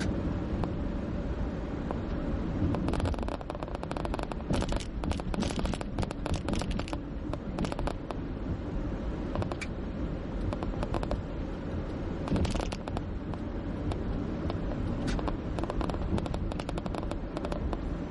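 Steady road and engine rumble of a moving car heard from inside the cabin, with bursts of rapid crackling clicks about three seconds in and again around twelve seconds.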